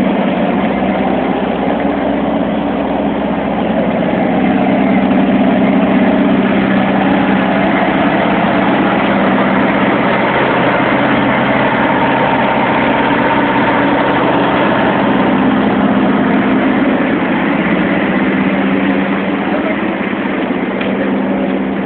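Scania R730's V8 diesel idling steadily together with the loud, steady running of the Lamberet trailer's refrigeration unit, whose noise largely covers the engine.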